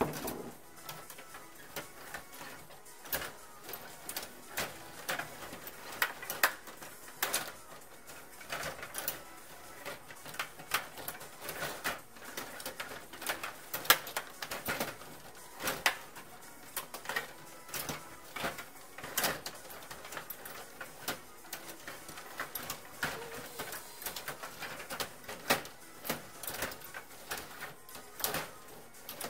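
STIGA rod hockey game in play: irregular clicks and knocks of the rods, plastic players and puck, sometimes several a second, with a few louder knocks.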